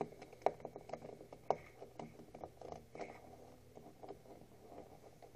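Faint, irregular light clicks and taps of a cheap plastic Rubik's cube being handled, two of the clicks a little sharper than the rest.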